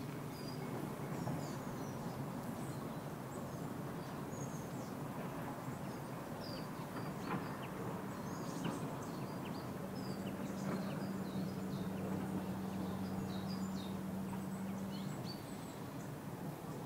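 Summer outdoor ambience: small songbirds chirping throughout, with domestic chickens clucking. Under them a steady low hum strengthens from about ten seconds in and drops away shortly before the end.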